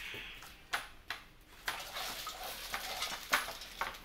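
Cardboard packaging being handled: a few sharp knocks and clatters over rustling, as an opened shipping box is moved about.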